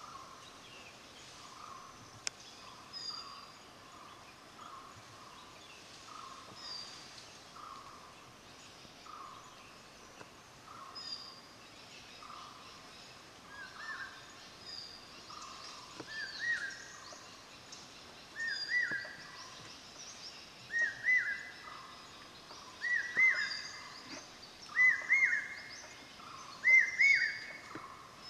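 Forest birdsong. One bird repeats a short two- or three-note call about every two seconds, each phrase climbing higher and getting louder through the second half, over softer calls and chirps from other birds.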